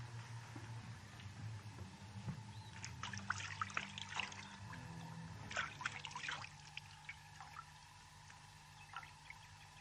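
Water splashing and dribbling in an enamel washbasin as a man scoops it onto his face with his hands, in two bursts of splashing a second or so apart, then a last small splash near the end, over a low steady hum.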